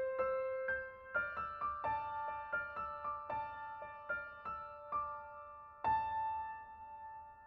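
Background piano music: a melody of single struck notes, with one note about six seconds in left ringing as it fades.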